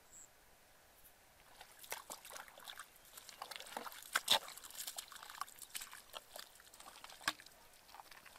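Bare feet squelching and splashing through wet mud and shallow puddles, an irregular run of wet steps that begins about a second and a half in and is loudest about four seconds in, as they pass close by.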